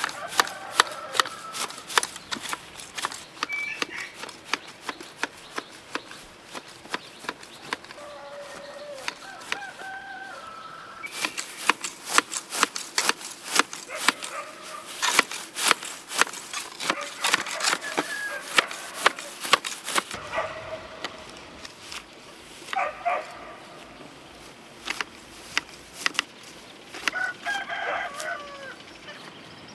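Long-handled hedge shears snipping grass, their metal blades closing in quick repeated clicks, the run of cuts thinning out about two-thirds of the way through. Chickens cluck and a rooster crows in the background.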